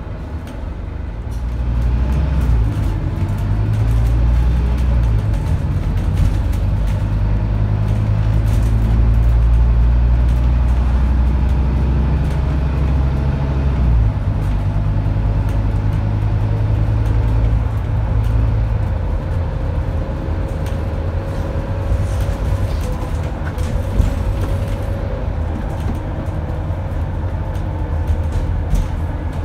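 Scania N230UD bus's DC9 five-cylinder diesel engine heard from inside the bus, pulling hard from about two seconds in, with a step down in the engine note about halfway through. Later the load eases to quieter running, with a faint rising whine over it.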